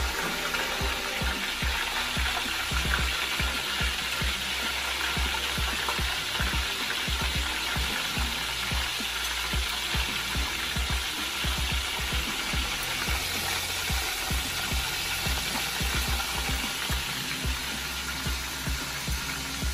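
Floured chicken pieces frying in hot oil in a skillet: a steady sizzle.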